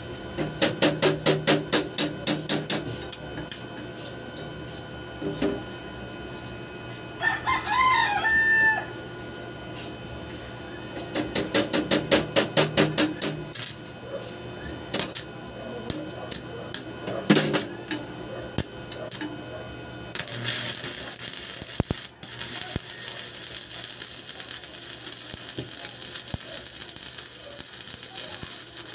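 Stick welding at 300 amps with a large electrode on a YAMAPRO ARC-300A inverter welder: the arc starts about twenty seconds in and runs as a steady hiss. Earlier, a rooster crows once about seven seconds in, amid two short runs of rapid rhythmic clatter.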